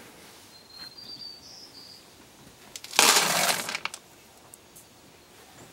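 Dry cat food kibble rattling in a clear plastic container, one short burst of just under a second about three seconds in, with faint handling sounds around it.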